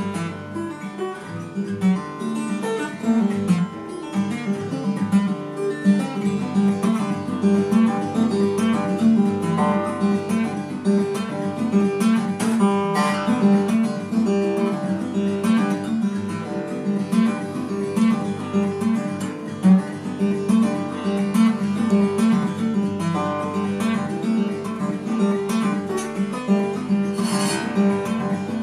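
Fender steel-string acoustic guitar played solo, a continuous run of picked notes and chords.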